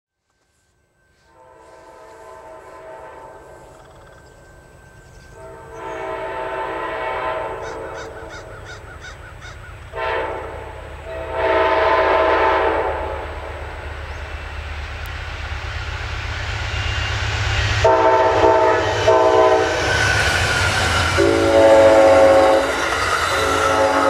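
Amtrak Lake Shore Limited's diesel locomotive horn played as a horn show: a run of blasts, several long and several short, while the train approaches. The rumble of the train grows steadily louder, and near the end the passenger cars rush past on the rails.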